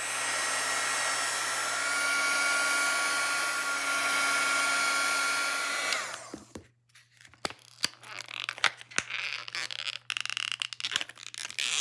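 Handheld electric heat gun running steadily, a rush of air with a whine over it, switched off about six seconds in. After it, thin plastic packaging crinkles and clicks in short bursts as it is pressed by hand around a form.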